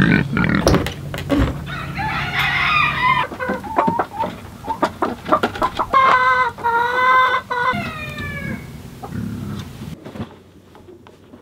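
Chickens clucking, and a rooster crowing once, about six seconds in, its call dropping in pitch at the end.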